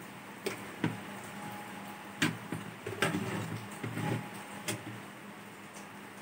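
Small clicks and scrapes of a power supply board and its plug-in wire connectors being worked loose from a set-top box's metal chassis: several sharp clicks, with a short stretch of rustling and scraping about three to four seconds in.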